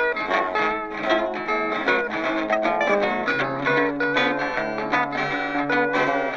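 Background music: guitar-led plucked-string tune with quick picked notes.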